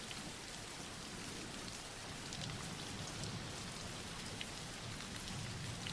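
Steady soft rain falling, an even patter with faint scattered drop ticks.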